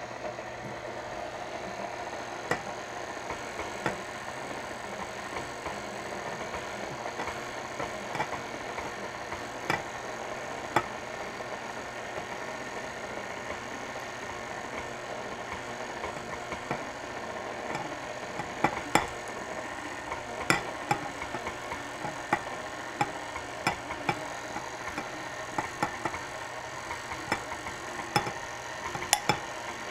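KitchenAid Classic tilt-head stand mixer running steadily as dry ingredients are spooned into the cake batter, with scattered sharp taps that grow more frequent in the second half.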